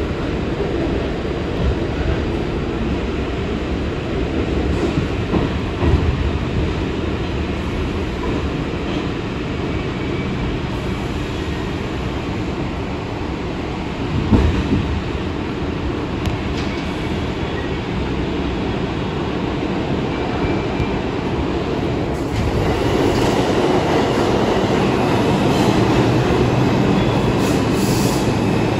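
R62 New York City subway train running, a steady rumble and rattle of steel wheels on rail, with a sharp jolt about fourteen seconds in. The sound grows louder in the last several seconds, with faint squealing tones.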